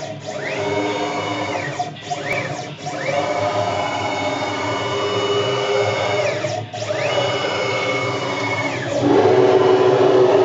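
CNC router's stepper motors whining as the axes move: for each move the pitch rises, holds steady and falls back, several times, the longest move lasting about three seconds, over a steady machine hum. The sound grows louder and heavier about nine seconds in.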